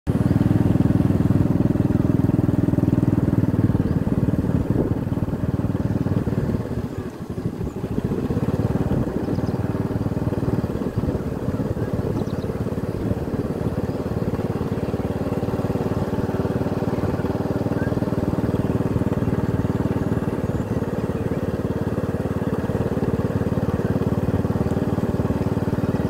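Motorcycle engine running steadily while riding along a dirt track, dropping off briefly about seven seconds in and then picking up again.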